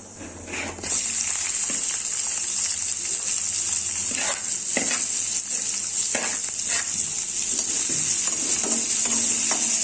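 Chopped onions dropped into hot oil with spluttered cumin seeds in a kadai: a steady frying sizzle starts about a second in. A few scrapes against the pan as the onions are stirred.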